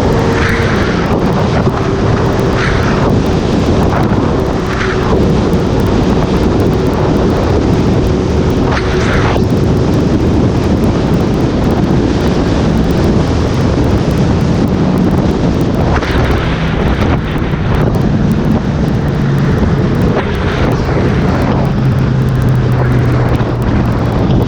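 Heavy wind noise buffeting the microphone on a moving Honda CB1000R motorcycle, with the engine's steady drone underneath and a few short hisses.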